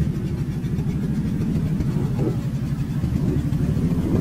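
Can-Am mud ATV's engine running steadily under throttle as the quad pushes through a deep mud hole, with a fast low pulsing exhaust note.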